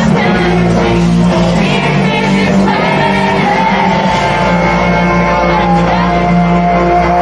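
Rock band playing live through a festival PA, with a sung lead vocal over heavy bass, drums and guitars, heard from among the crowd.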